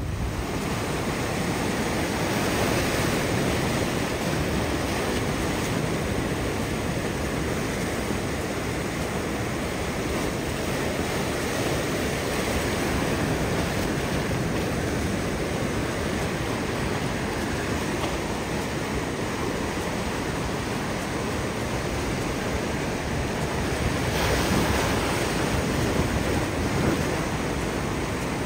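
Ocean surf washing and foaming over a rock platform, a steady rushing wash that surges louder near the end.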